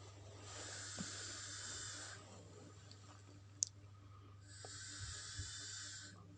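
Two short bursts of sizzling, each under two seconds long, as marinated chicken pieces go into hot oil in a pan, with a sharp click between them.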